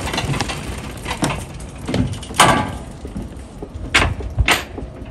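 Knocks and clunks from a Honda RC45 motorcycle being pushed by hand, engine off, up a metal loading ramp into a van. The loudest clunk comes about two and a half seconds in, and two sharper knocks follow near the end.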